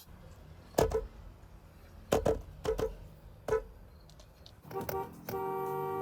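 Four brief clicks, then about a second from the end a car horn starts sounding steadily, two notes held together.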